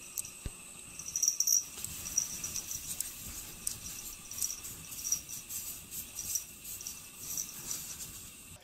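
Dog pawing and scratching at a wall of packed snow, an irregular run of quick, scratchy crunches.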